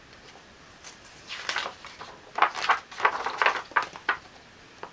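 Pages of a large picture book being turned by hand: a run of quick papery rustles and flaps over a few seconds.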